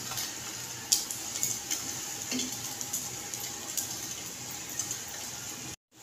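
Egg-battered bread frying in desi ghee in a nonstick pan on a low flame: a steady sizzle with scattered small crackles. The sound cuts out for a moment near the end.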